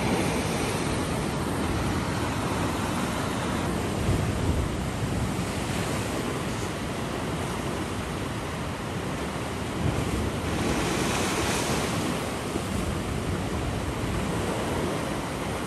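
Ocean surf breaking and washing over a coastal rock platform, a continuous rushing noise, with a brighter hissing wash about ten seconds in.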